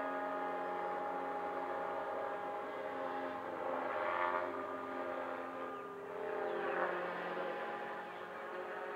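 Electric RC model airplane in flight, its motor whine swelling as it passes about four seconds in and again near seven seconds, over a steady multi-tone whine.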